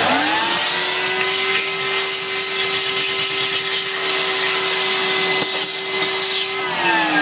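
Bush VCS35B15K0D-70 cylinder vacuum cleaner running without its post-motor filter fitted: the motor starts, rising within half a second to a steady whine over a rush of air. Near the end the whine starts falling in pitch as the motor winds down.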